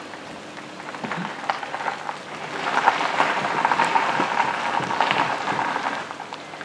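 Steady rain falling on floodwater and a wet road, getting louder about two and a half seconds in.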